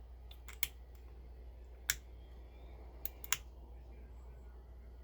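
Small, sharp metallic clicks from a hook pick and tension wrench working the pin stack of a Master Lock 410 lockout padlock: about six clicks, three in quick succession early on, a louder one about two seconds in, and two more around three seconds.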